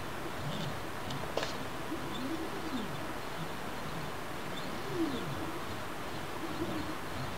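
Dobot robot arm's stepper motors whining as the arm moves. The pitch rises and falls in arcs several times as each move speeds up and slows down. There is one sharp click about one and a half seconds in.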